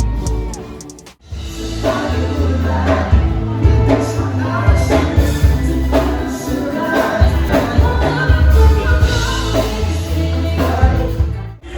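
Background music: one track fades out about a second in, and a song with singing over a steady beat starts.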